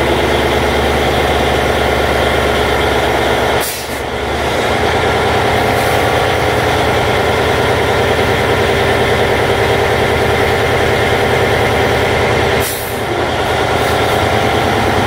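Diesel engine of an antique cable-operated power shovel running steadily under load, heard from the operator's cab while the machine digs. Two brief hisses of air cut in with a short dip in the engine note, about four seconds in and again near the end.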